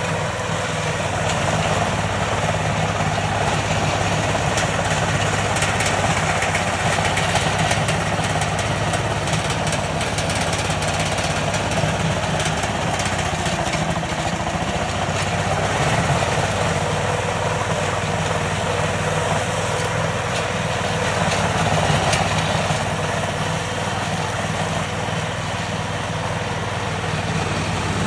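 Kummucit KM840/14 PRO ride-on meadow mower running steadily as it cuts through tall grass, its engine note even throughout.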